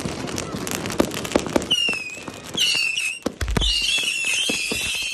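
Fireworks going off in rapid crackling pops. From about two seconds in, high wavering whistles rise over them, and a single deep boom comes about three and a half seconds in.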